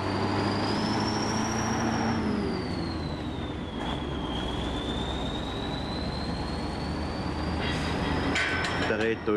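Diesel lorry with a box trailer driving past and pulling away: a steady engine and road noise, with a thin high whine that rises, dips about four seconds in and rises again. A brief rattle near the end.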